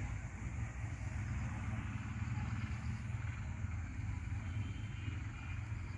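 Distant road traffic: a steady low rumble with no distinct events.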